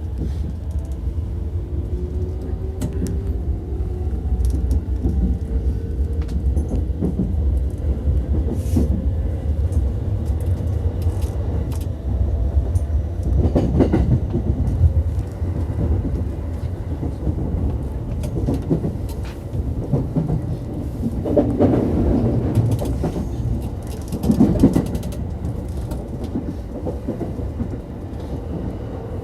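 Running sound inside a Chūō-Sōbu Line local electric train: a steady low rumble of wheels on rails. A faint rising whine is heard over the first few seconds, and there are louder clatters of wheels over rail joints or points around the middle and again later on.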